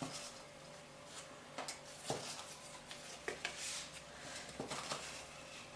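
Faint handling of paper and cardstock pieces: a handful of soft taps and a brief rustle as card panels are moved and positioned.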